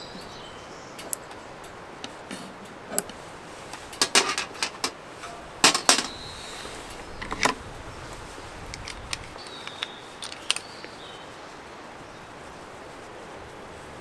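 A cluster of sharp clicks and knocks in the middle, over a steady outdoor hiss, with a few short high bird chirps near the start, in the middle and again later.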